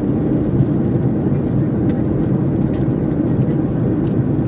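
Steady low rumble of airliner cabin noise: engine and airflow noise heard from inside the passenger cabin.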